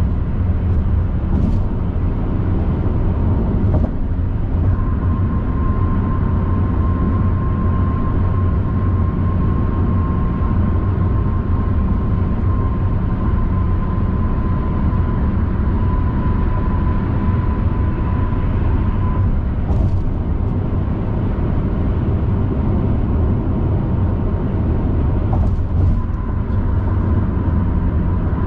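Steady low rumble of tyres and engine heard from inside a car cruising at motorway speed, with a faint steady whine that drops out about two-thirds through and a few faint ticks.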